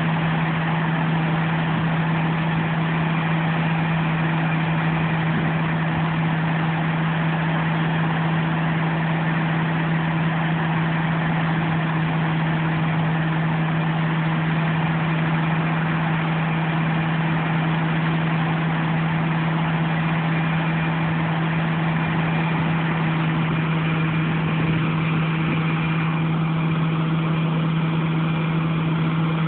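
Diesel harvest machinery running steadily at constant speed: an even engine drone with a strong unwavering hum and mechanical rush, no revving or load changes.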